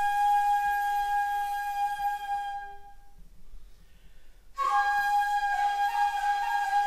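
Solo shakuhachi (Japanese end-blown flute) playing a long held note that fades away, then after a pause of about a second and a half a new note enters with a brief higher onset and is held with a slight bend in pitch.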